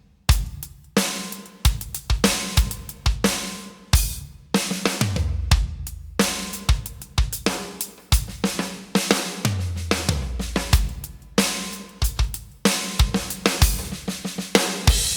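Roland TD-50X electronic drum kit played through Vexpression's 'Popped' sample kit: a groove of kick, snare, hi-hats and cymbals with tom fills, broken by a couple of brief stops.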